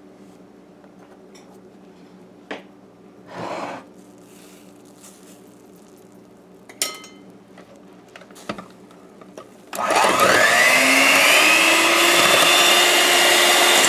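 Electric hand mixer switching on about ten seconds in and running loudly as its twin beaters whisk beaten eggs in a glass bowl, the motor's whine rising in pitch as it comes up to speed. Before it starts, a few faint taps and clicks.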